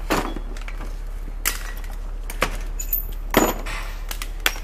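Metal tow rigging being handled: about five sharp clanks and clinks a second or so apart, the loudest a little past the middle with a short metallic ring. A steady low hum runs underneath.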